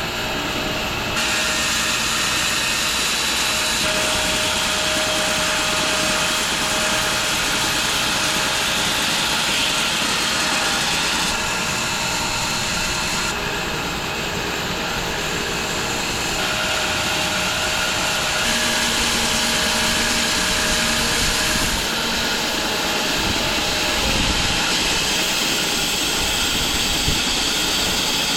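Home-built wide bandsaw mill running and sawing through a London plane log: a loud, steady machine noise whose tone shifts abruptly several times.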